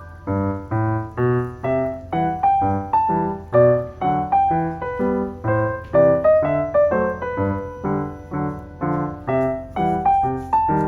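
Background piano music: a steady run of single notes struck about two to three times a second, each ringing briefly before the next.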